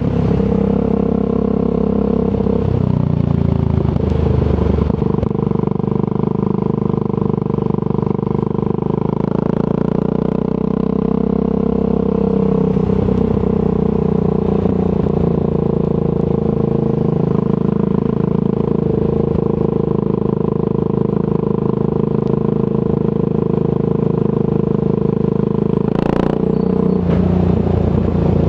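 Triumph Scrambler 400 X's single-cylinder engine running through a Zard aftermarket exhaust while riding, mostly at a steady note, with the engine note shifting a few seconds in. A single sharp click near the end.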